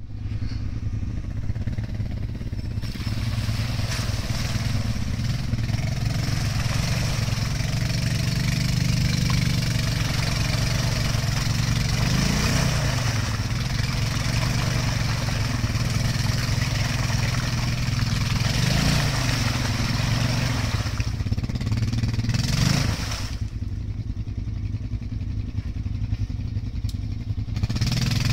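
Honda Rancher 420 ATV's single-cylinder engine running under load as the machine churns bogged down in a mud hole on 26-inch Mudzilla tires. It revs up in surges several times, drops to a lower, quieter run for a few seconds near the end, then picks up again.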